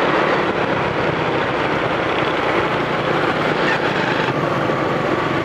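Steady rush of wind over the microphone on a moving motorbike, with the engine running underneath.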